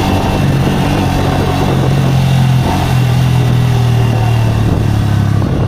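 Bajaj Pulsar N160's single-cylinder engine running under throttle on a hill climb, its note stepping up in pitch about two seconds in and easing back near the end. This is the engine noise the owner takes for a fault.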